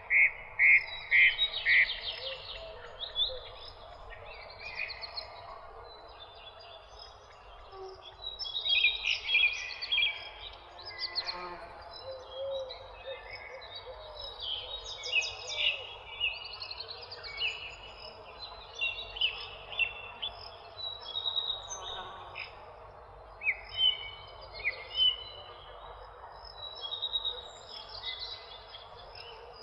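Several birds chirping and singing at once, short calls and trills overlapping throughout, over a steady background hiss. A quick run of four or five loud chirps opens it.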